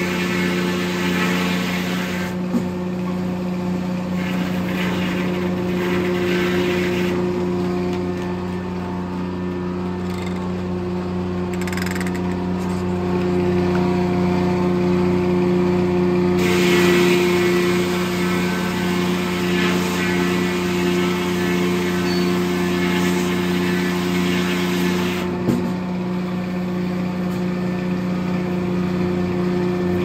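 Corley circle sawmill running at steady speed, its engine hum constant, with two long stretches of harsher, higher noise as the blade cuts through a pine log. A couple of single sharp clicks stand out.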